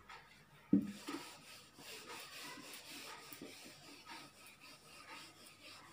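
A brief thump near the start, then a whiteboard duster rubbing back and forth across a whiteboard, wiping off the writing with a faint, steady scrubbing.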